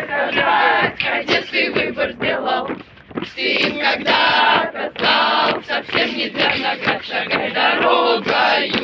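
A marching column of cadets singing a drill song together in loud unison, with a short break for breath about three seconds in.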